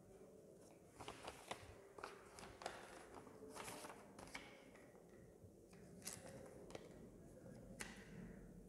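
Faint, scattered taps and rustles of paper ballots and envelopes being handled during a vote count. Most of them come between about one and four and a half seconds in, with single clicks later on.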